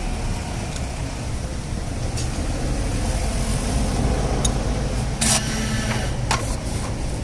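Bajaj Pulsar 180 single-cylinder motorcycle engine running steadily, with a few sharp metallic clicks, the loudest about five seconds and six seconds in.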